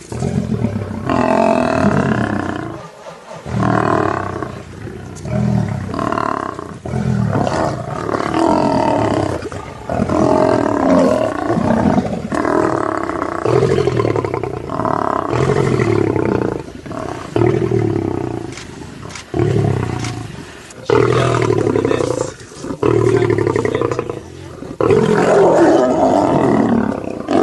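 Lions growling and snarling at one another while feeding together on a kill, one deep growl after another with short breaks between them.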